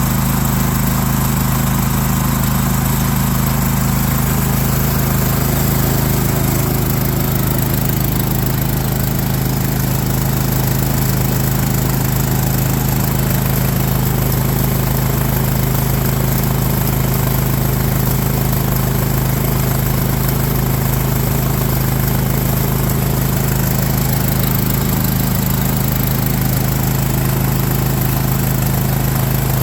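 Harbor Freight small engine, swapped onto an air compressor, running steadily at a constant speed with no change in pitch.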